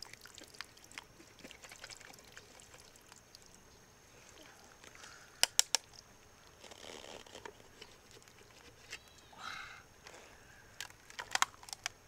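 Quiet handling sounds: scattered light clicks and taps, with three sharp clicks in quick succession about halfway through and another cluster of sharp clicks near the end.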